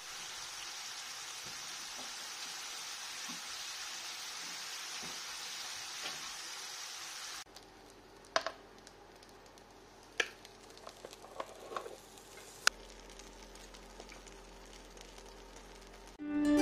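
French fries deep-frying in hot oil: a steady sizzle that cuts off abruptly about seven seconds in. A quieter stretch follows with a few scattered faint clicks and knocks.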